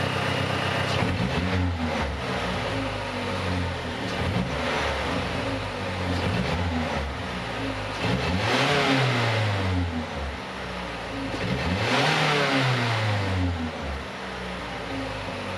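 Mazdaspeed3's turbocharged 2.3-litre four-cylinder engine revved several times, each rev falling back toward idle. The two revs in the second half go highest, with a rushing hiss at their peaks.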